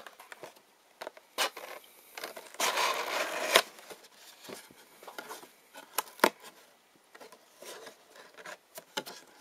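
A trading-card box being opened and handled by hand: scattered sharp clicks and taps of cardboard, with a rough rasping stretch about a second long starting about two and a half seconds in.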